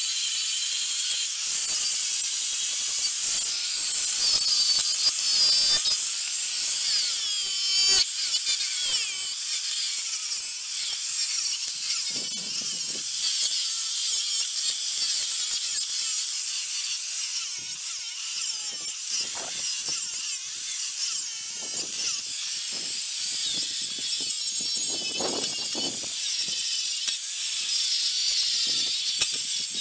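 Electric angle grinder with an abrasive disc grinding the steel of a snowmobile ski: a continuous high whine and grinding hiss whose pitch wavers as the disc bites, with a few heavier scraping moments.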